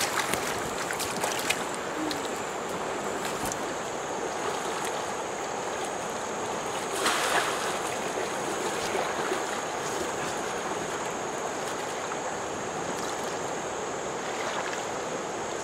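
Fast-flowing river water running steadily, with a thin, steady high tone above it and a louder surge of water noise about seven seconds in.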